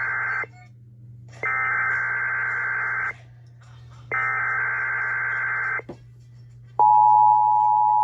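NOAA Weather Radio Specific Area Message Encoding (SAME) test alert: the end of one burst of warbling digital header data, then two more bursts of under two seconds each with short gaps between them. About 7 s in, a loud, steady tone alert begins and holds, the signal that activates weather radio receivers.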